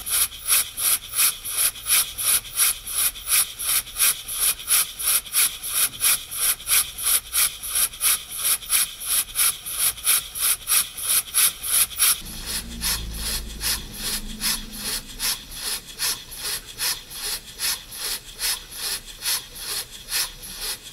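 Scratch-built model marine walking beam engine running on its first test, giving off a fast, even train of hissing exhaust puffs with the clatter of its valve gear. It is breaking in against heavy valve springs, with no paddle wheels or flywheel fitted to even it out. About twelve seconds in the puffs turn softer and a low rumble comes in briefly.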